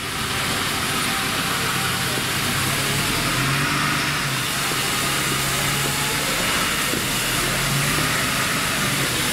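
Small steam locomotive standing at a platform, hissing steadily as it is readied to depart, with a faint low hum beneath the hiss.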